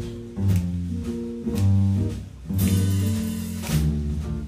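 Live jazz band instrumental: an archtop jazz guitar playing chords over double bass notes, with cymbal strokes from the drum kit about twice a second.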